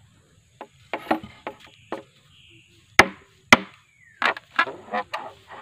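Machete blade chopping into a hollow bamboo pole at its node: about a dozen irregular sharp knocks, each with a short ringing tail, the two loudest about half a second apart near the middle. The strokes score the culm all round so it can be opened flat into sasag bamboo panelling.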